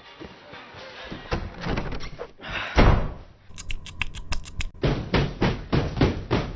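A series of knocks and thuds like a door banging, with one loud thump about three seconds in, then the sound repeated in a fast stutter of knocks.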